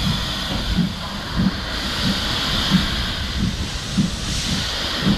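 LMS Black Five steam locomotive 45212 working away from a standstill with its train. Steam hisses steadily over a regular low beat about one and a half times a second.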